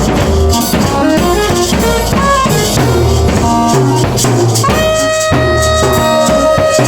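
Live improvised band music: a drum kit playing under a melodic line of short, moving notes, with a long held note coming in about two-thirds of the way through.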